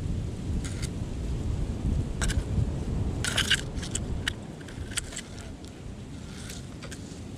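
Wind rumbling on the microphone, easing after about four seconds, with scattered sharp clicks and scratches; the loudest is a short crackling burst about three seconds in.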